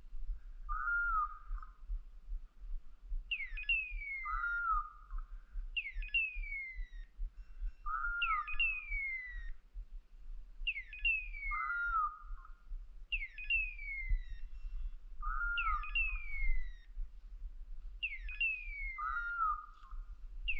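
Beeper collars on two English setters sounding in point mode: one gives a short flat beep every three to four seconds, the other a falling screech about every two and a half seconds, the signal that the dogs are standing still on point. A low rumble on the microphone runs underneath.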